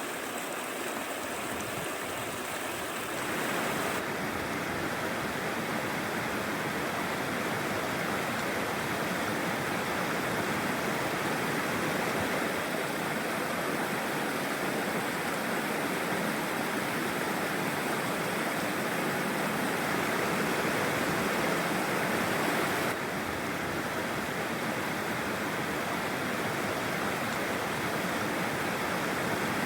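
Mountain stream rushing steadily over rocks, a continuous, even rush of water. The tone shifts slightly about three and a half seconds in and again about 23 seconds in.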